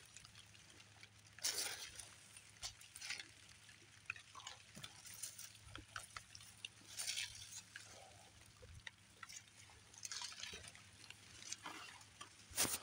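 Leaves and branches of berry bushes rustling and brushing against the person and the phone, in faint irregular swishes, with a louder brush near the end.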